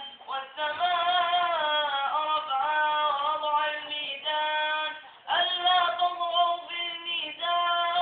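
A boy reciting the Quran in the melodic chanted style, in long held, ornamented phrases, with a short pause near the start and another about five seconds in.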